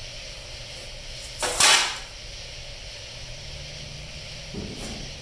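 A single short, sharp clatter of a hard tool being handled, about a second and a half in, with a softer knock near the end over a steady background hiss.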